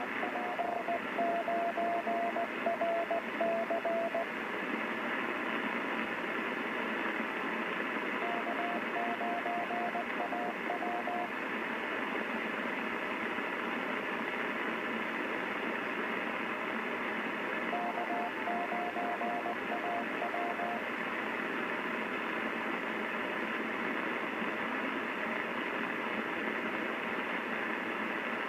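Morse code (CW) received on a Yaesu FRG-7700 shortwave receiver: a single beeping tone keyed in dots and dashes, over steady receiver hiss. It comes in three spells of a few seconds, with stretches of plain hiss between them, as stations of a Morse net, probably amateur radio, take turns.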